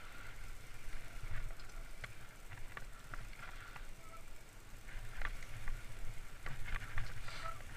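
Trek Fuel EX 8 full-suspension mountain bike riding fast down a dirt forest trail: tyres hissing on the dirt, with scattered sharp clicks and rattles from the bike over bumps and roots. A low wind rumble on the microphone runs underneath.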